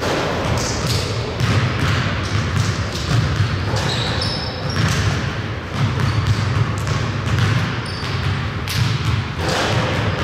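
Basketball game on a gym court: a ball bouncing on the hardwood amid repeated knocks, with a few short high squeaks of sneakers.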